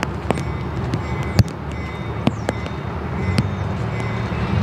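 Diesel locomotive running some way off, a steady low drone, with several sharp clicks over it, the loudest about a second and a half in.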